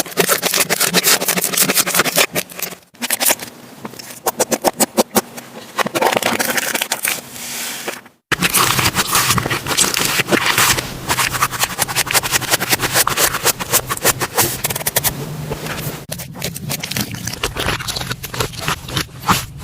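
Slime being squeezed and pressed by hand, giving dense, rapid crackling and popping clicks. The sound breaks off briefly about 3 and 8 seconds in as one clip gives way to the next.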